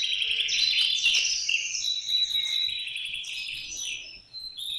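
Birds chirping and trilling, many short overlapping calls, dipping briefly near the end.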